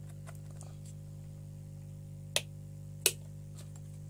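Two sharp clicks about two-thirds of a second apart, a little past the middle, from hands handling cables and parts at the motherboard bench, over a steady low hum.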